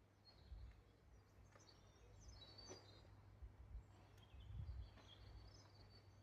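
Faint birds chirping, short high calls scattered through, over a low uneven rumble.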